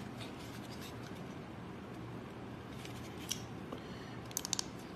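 Faint clicks and rattles of two Ecome ET-66 handheld walkie-talkies being handled: a single click about three seconds in and a short run of clicks near the end, over a low steady room hum.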